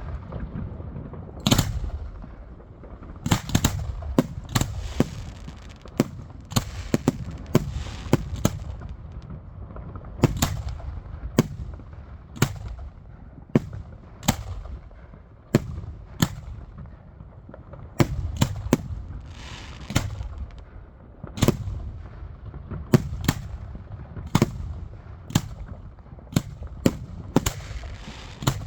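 Fireworks going off: a long run of sharp bangs at irregular intervals, some bunched in quick clusters, with a brief hiss about twenty seconds in.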